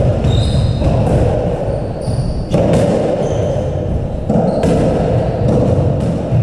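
Squash ball being struck by rackets and hitting the walls and floor in a rally, with short high squeaks of court shoes on the wooden floor, in a large echoing hall.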